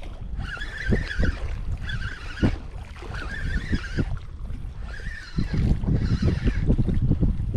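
Fishing reel being cranked to bring in a hooked bass: a whirring that rises and falls about once a second with each turn of the handle. Low wind and handling rumble on the microphone runs under it and grows louder about two-thirds of the way through.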